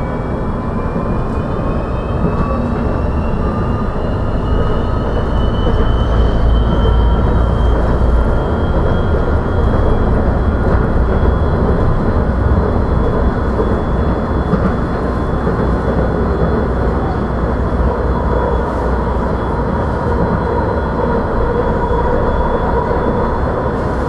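Kuala Lumpur LRT train running, heard from inside the carriage: a steady low rumble of wheels on track, with an electric motor whine that rises in pitch over the first ten seconds or so as the train gathers speed, then holds steady.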